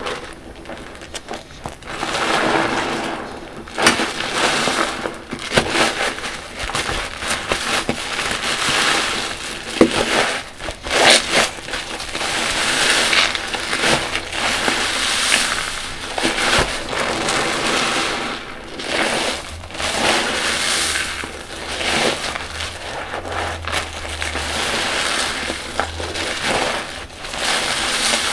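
Car wash sponges full of soapy water squeezed by hand, over and over: wet squelching with the foam crackling and fizzing, a squeeze every second or two.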